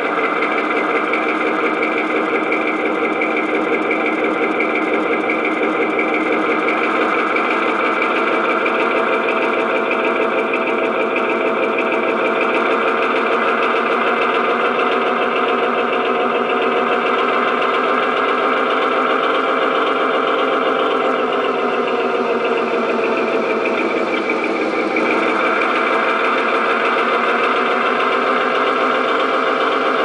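Sound system of a large-scale B&O E8 model diesel locomotive playing a diesel engine sound while the model stands still: a steady, buzzy engine drone with little deep bass. The engine note bends and shifts about twenty to twenty-five seconds in.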